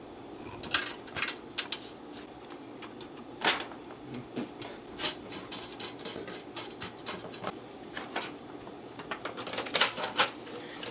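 Irregular clicks and light metal taps from a Macintosh SE/30's sheet-metal chassis and drive frame being handled and fitted back together, with a screwdriver working at the frame.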